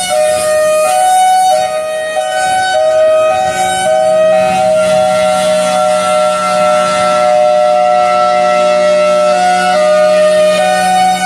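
Federal Signal Thunderbolt 1003 outdoor warning siren sounding its hi-lo signal, switching back and forth between two steady pitches every half second or so. In the middle it stays longer on the lower pitch.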